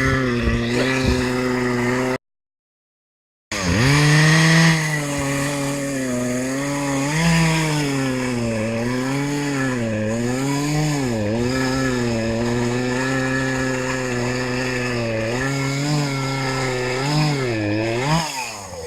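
Chainsaw running at high revs while cutting into a tree: its engine pitch repeatedly dips under load and climbs back. The sound drops out completely for about a second near the start, and the revs fall away near the end.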